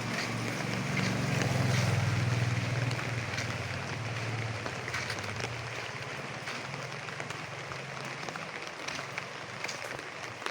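Drizzling rain falling steadily. A low engine hum swells about two seconds in and fades away over the following several seconds, like a vehicle passing by.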